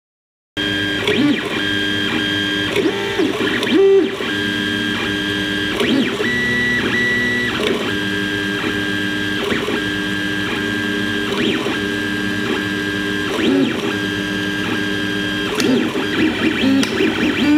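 3D printer running, its stepper motors whining in steady tones that start, stop and change pitch with each move of the print head as it lays down the first layer on the heated bed. The sound begins about half a second in.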